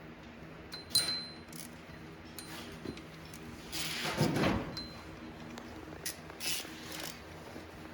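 Metal transmission parts being handled: a sharp clink with a short ring about a second in, a louder clatter near the middle, and a few lighter knocks, over a low steady hum.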